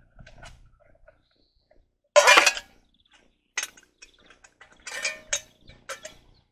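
Metal camping cookware being handled during cleaning. There is one loud clatter about two seconds in, then a sharp clink and several smaller clinks and knocks.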